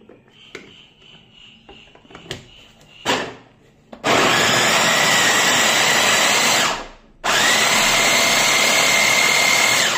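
Glen SA4043 electric mini chopper's motor running in two pulses of about two and a half seconds each, its twin blades chopping carrots, with a whine that rises as it spins up. Before that, a knock about three seconds in as the motor head is set on the bowl.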